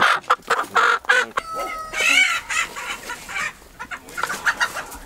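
Chickens clucking and squawking in quick, short calls, with one longer, drawn-out call about a second and a half in.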